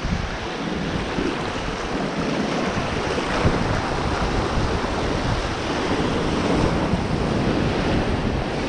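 Waves breaking and washing around shoreline rocks in a steady rush, with wind rumbling on the microphone.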